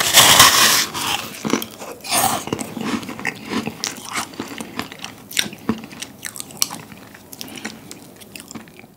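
A bite into a giant crisp meringue cookie: a loud crumbly crunch in the first second and another about two seconds in, then chewing with many small crackling crunches that thin out over the following seconds.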